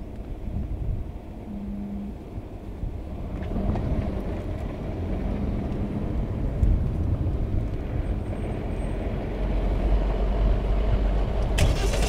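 A car's engine and road noise heard from inside the cabin as it drives along, a steady low rumble growing gradually louder. A sharp click comes near the end.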